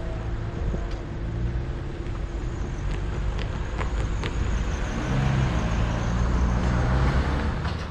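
Cars driving across a railway level crossing after the barriers have lifted: engine and tyre noise from passing cars, with a few sharp clicks about three to four seconds in and a closer car getting louder in the second half.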